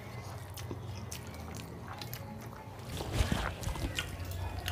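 Eating sounds by hand: fingers squishing and mixing fried rice into chicken curry on a plate, with chewing and small wet mouth clicks, busiest about three seconds in, over a low steady hum.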